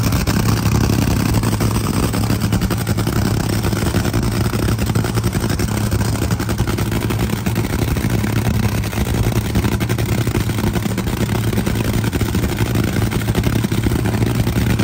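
Top Fuel dragster's supercharged nitromethane-burning V8 idling steadily and loudly, with a rapid, even firing pulse.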